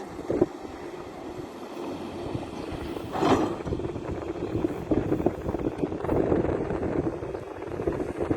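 Heavy excavation machinery running and working, an irregular rough rumble, with a louder burst of noise about three seconds in.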